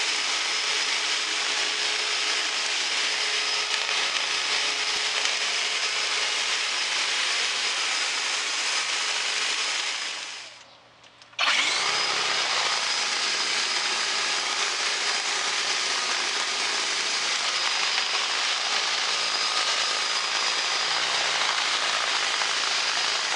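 EGO cordless battery leaf blower running at full power, a steady rush of air with a high whine, and its red whip attachment flapping in the airstream at the nozzle. The blowing breaks off for about a second near the middle, then starts again.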